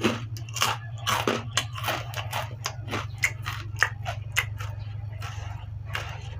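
Close-up crunching bites and chewing of crispy pork rinds, about three sharp crunches a second, thinning out near the end, over a steady low hum.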